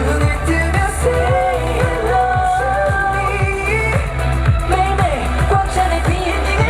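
K-pop dance song with sung vocals over a steady electronic beat and bass.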